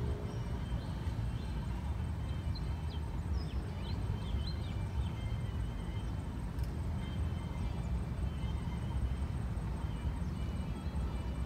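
Wind rumbling steadily on the microphone beside open water, with a few short, high bird chirps between about one and five seconds in.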